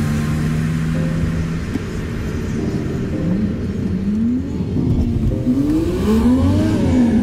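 Car engine heard from inside the cabin, holding a steady note at first, then revved several times from about three seconds in, the pitch climbing highest near the end before falling back.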